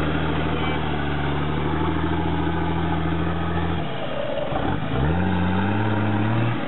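Off-road 4x4's engine held at high revs under load on a muddy slope. It drops back about four seconds in, then revs up again a second later and holds before easing off near the end.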